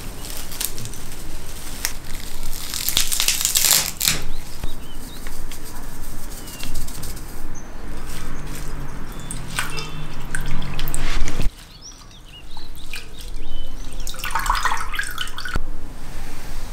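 Fresh parsley being swished by hand in a glass bowl of water and lifted out: water splashing and dripping, in irregular bursts, with a brief drop-out about two-thirds of the way through.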